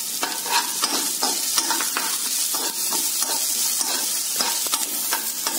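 Sliced shallots and green chillies sizzling in hot coconut oil in a kadai, frying the tempering for a buttermilk curry. A spatula stirs them, scraping the pan in regular strokes about three times a second.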